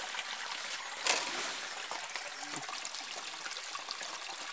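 Shallow stream water trickling and running steadily over rocks, with one short sharp sound about a second in.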